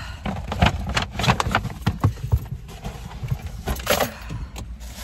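Wind buffeting the microphone with a steady low rumble, broken by many short clicks and rustles of hair and hands brushing against the phone.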